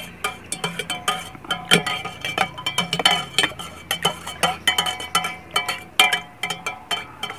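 Metal spoon stirring briskly in a stainless steel mug, clinking against its sides in a quick, regular rhythm of about three ringing clinks a second, as sugar and salt are dissolved into lemon water.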